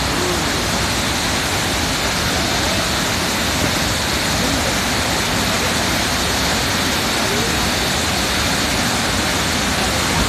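Waterfall pouring, a loud steady rush of water with no breaks.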